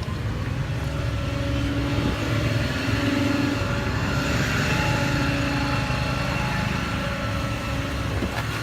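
2012 Ford F-550's V10 gas engine running with the power take-off engaged, driving the crane's hydraulic pump. A steady whine comes in over the engine about a second and a half in and holds.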